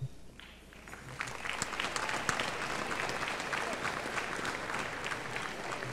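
Audience applauding, building up about a second in and then going on steadily.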